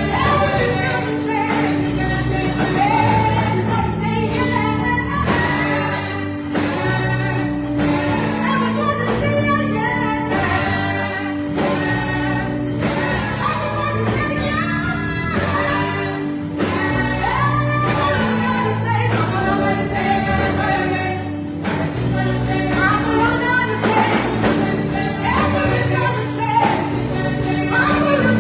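Gospel music with a choir singing over bass, keyboard and a steady beat.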